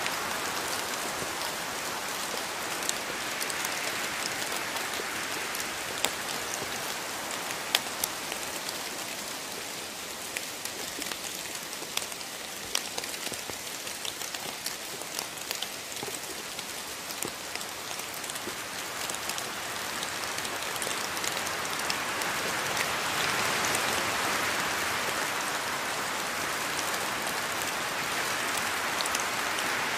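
Rain falling steadily, a dense hiss with many distinct drops striking close by. It eases a little in the middle and grows heavier again toward the end.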